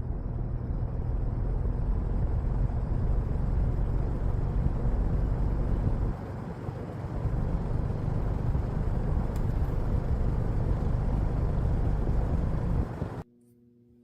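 1983 Lakewood P-58 20-inch box fan running, a steady rush of air with a low rumble and faint motor hum, dipping briefly about halfway through. The sound breaks off abruptly about a second before the end.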